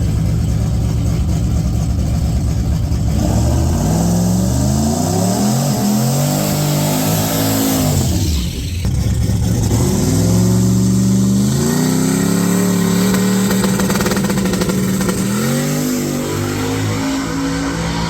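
Turbocharged LS V8 of a Holden VH Commodore drag wagon, running at low revs and then revving hard from about three seconds in, pitch climbing. It breaks off briefly near the middle, then holds high revs, with another short drop and climb near the end.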